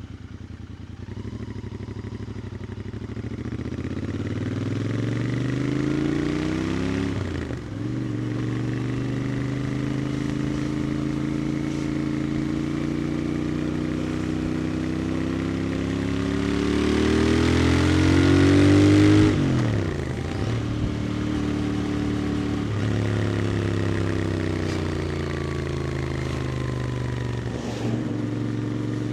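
Royal Enfield Interceptor 650 parallel-twin engine and exhaust pulling away and accelerating. The note climbs, drops sharply at gear changes about seven and nineteen seconds in, climbs again, then settles into a steady cruise with another brief shift near the end.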